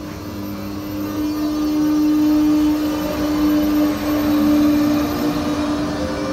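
ČD class 163 electric locomotive passing close by at the head of a passenger train. A steady electric hum comes from its thyristor-chopper traction equipment, over the rumble of wheels on rail. The hum swells as the locomotive goes past and eases off a little near the end.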